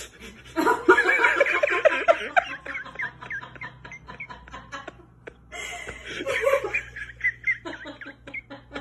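A person laughing in two bouts of giggling: the louder one starts about half a second in and trails off, and a second starts a little past the middle.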